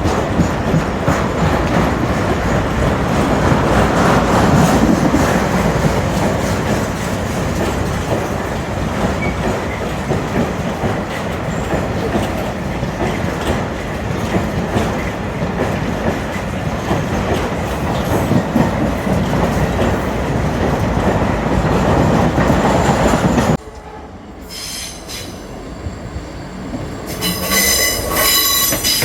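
A train running past, a loud rumble and rattle of wheels on rail, with wheel squeal. The sound cuts off suddenly about five seconds before the end. A quieter stretch follows, and near the end a high-pitched squeal or tone sets in.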